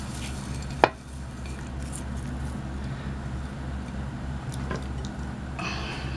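Kitchen handling noises over a steady low hum: one sharp knock just under a second in, a couple of faint ticks later, and a brief rustle near the end as an arm moves close past the microphone.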